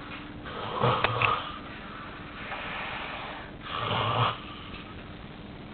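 A man snoring heavily in his sleep: two loud snores about three seconds apart, with a softer breathy sound between them. The snoring comes from an airway obstructed by severe nasal polyps.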